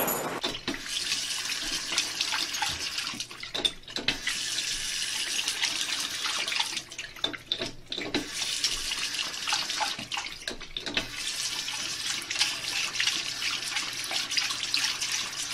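Water running from a bathroom sink faucet while a dog paws at its lever handle. The flow breaks off briefly a few times and then runs on.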